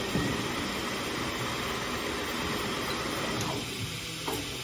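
Hunter tire changing machine running, turning the wheel as it breaks the tire's top bead: a steady mechanical whir with hiss that drops away about three and a half seconds in, followed by a single click.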